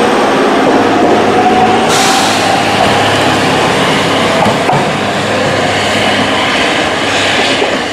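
JR East GV-E400 series diesel-electric railcar pulling out of the station, its diesel engine running steadily under the rumble and hiss of wheels on rails. The sound shifts abruptly about two seconds in, brighter and hissier.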